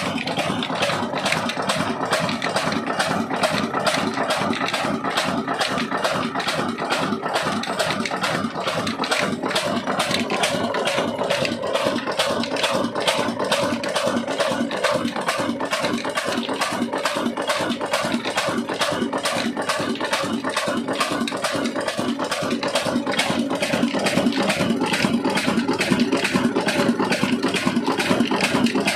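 Old Ruston Hornsby horizontal stationary engine running steadily with a rapid, even beat, belt-driving a flour mill (chakki). It gets a little louder in the last few seconds.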